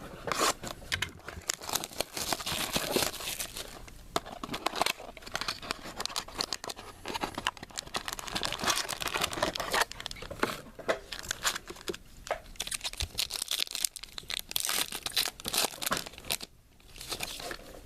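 Crinkling and tearing of a trading-card pack wrapper as a pack is torn open and the cards are handled, in a run of irregular crackles.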